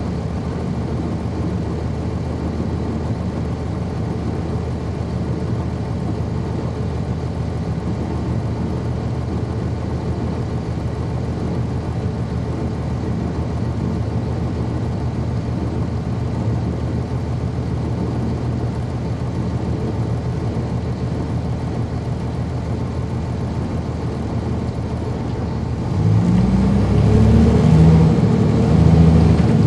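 Cummins ISC inline-six diesel engine of a 1999 Nova Bus RTS heard from on board, running with a steady low drone. Near the end it gets louder and its pitch rises then eases back as the engine revs up to pull the bus along.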